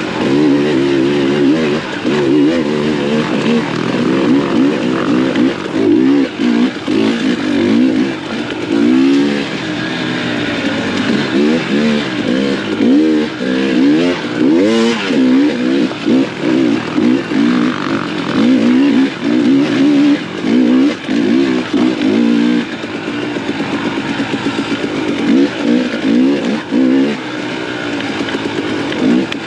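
Dirt bike engine revving up and down, its pitch rising and falling again and again through the whole stretch as the rider works the throttle.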